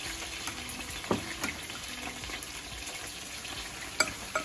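Gray snapper frying in hot oil in a steel pot, a steady sizzle, with a few sharp clicks of metal tongs against the pot.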